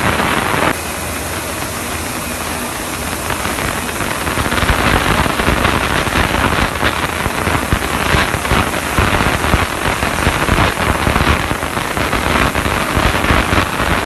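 Automatic parts-washing line running: water splashing and churning in the wash tanks over a steady low motor hum. A louder hiss cuts off abruptly under a second in, and the splashing grows rougher and more uneven from about four seconds on.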